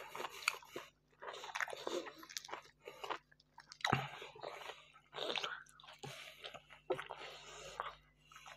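Close-up chewing and biting of fried meat (qalia) wrapped in flatbread, with wet mouth sounds and short irregular crunches; a sharp bite about four seconds in.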